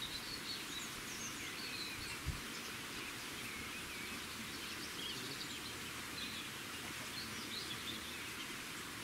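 Small birds chirping and singing repeatedly over a steady outdoor hiss, with one brief low thump a little over two seconds in.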